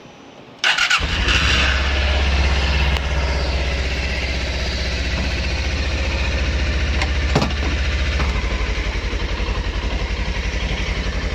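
Suzuki DL250 motorcycle's parallel-twin engine starting up with a sudden catch under a second in, then idling steadily with an even pulse. A single sharp click comes about seven seconds in.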